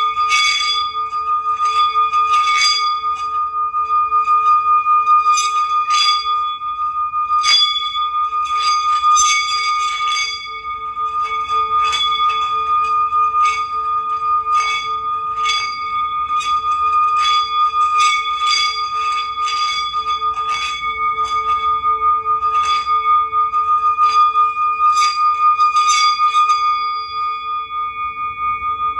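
Bells ringing for healing sounds: a steady, sustained bell tone holds throughout while lighter bell strikes fall on it irregularly, about one or two a second.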